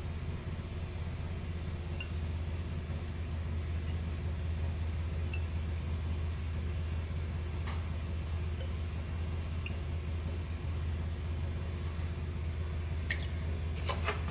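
Steady low hum throughout, with a few faint clicks near the end as the metal cap is pulled off a frosted-glass perfume bottle, uncovering its spray nozzle.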